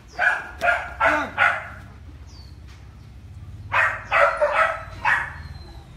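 A large black-and-tan dog barking: four quick barks at the start, then another run of four after a pause of about two seconds.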